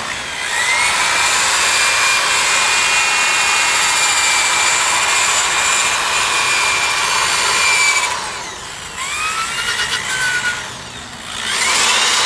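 Corded electric drill spinning a 3M wheel-restoration sanding pad against an alloy car wheel to take off tarnish and rust. The motor whine rises as it speeds up, holds steady for several seconds, dies away about eight seconds in, gives a couple of short spin-ups, then speeds up again near the end.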